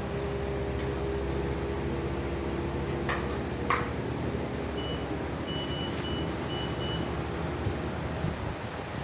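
Steady low hum with two sharp clicks about three seconds in, then a string of short, high electronic beeps at one pitch.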